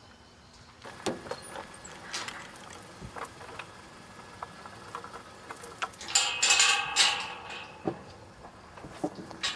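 Scattered clicks and knocks of handling, with a louder metallic jangle about six seconds in, as of keys.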